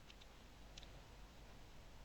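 Near silence with a few faint clicks: two close together at the start and another a little under a second in.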